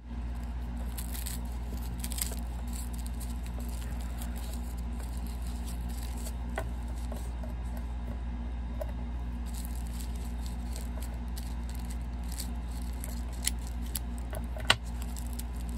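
Light handling noises: soft rustling and a few small sharp clicks and snips as scissors cut a label off a wrapped crystal, over a steady low hum.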